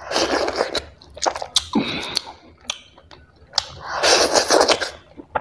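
Close-miked mouth sounds of eating dhido and chicken curry by hand: three wet, breathy slurps, the longest about four seconds in, with sharp lip smacks and chewing clicks between them.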